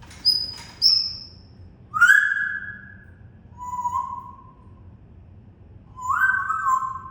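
Pet parrot whistling: two short, high whistles, then three lower, longer whistled notes, each sliding down a little in pitch.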